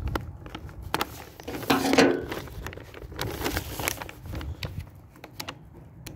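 Plastic candy wrapper crinkling and crackling as it is picked at and pulled open by hand, in irregular clicks with a louder burst about two seconds in. A steady low wind rumble on the microphone underneath.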